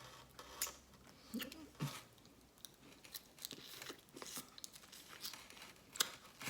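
Close-up eating sounds: chewing, with scattered faint crackles and clicks from crab shell and meat being picked apart.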